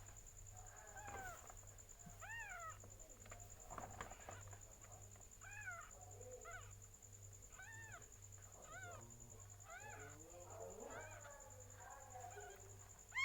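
Faint, short cat mews repeated about once a second, each rising and then falling in pitch, from a cat giving birth or her newborn kittens. A steady high-pitched electrical whine runs underneath.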